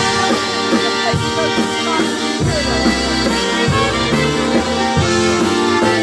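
Live polka band playing an instrumental stretch between sung lines: accordion and other instruments over a steady drum beat.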